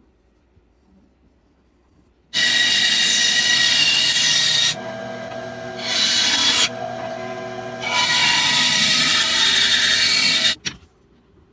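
Small benchtop band saw cutting a block of white oak. The blade noise starts suddenly about two seconds in, drops twice to a quieter running sound, and stops abruptly near the end.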